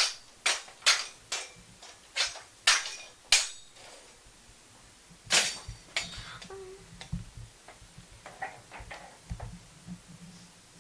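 Foley fight sound effects made for a kung fu scene: a quick run of short, sharp strikes, seven in the first three and a half seconds and another about five seconds in, followed by softer scattered knocks and rustles.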